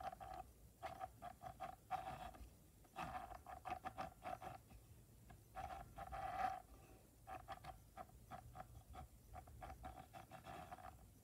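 Electric sewing machine stitching in short stop-start runs: a steady motor hum with the rapid clatter of the needle mechanism, the longest run near the end.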